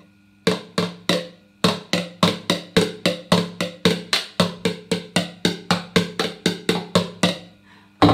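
Plastic toy drums struck with a drumstick in a steady beat of about three to four hits a second, each hit the same short, hollow knock. There is a brief pause about a second in, and the beating stops shortly before the end.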